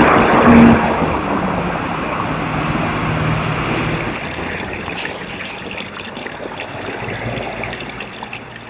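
Street traffic noise, loudest in the first second, with a vehicle engine running under it. About halfway through it gives way to the splashing trickle of a fountain spout running into a stone trough, with traffic behind it.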